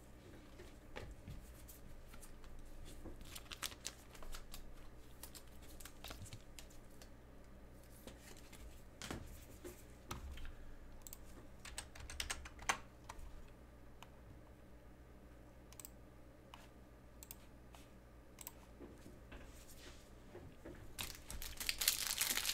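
Faint scattered clicks and taps, then near the end the crinkling of a plastic cello wrapper on a pack of trading cards being handled for opening.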